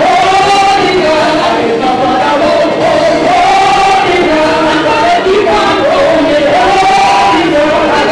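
Gospel choir singing loudly, with a woman's lead voice on a microphone carrying the melody over the choir.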